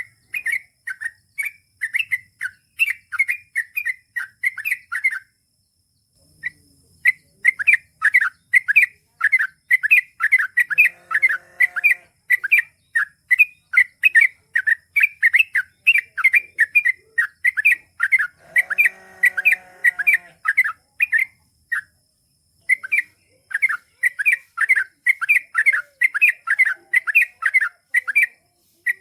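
Yellow-vented bulbul (trucukan) singing a long, fast run of short chirping notes, several a second, with brief pauses about five seconds in and again near twenty seconds in.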